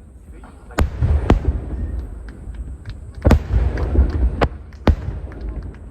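Aerial firework shells bursting overhead: five sharp bangs, in two clusters, with a low rumbling echo after them.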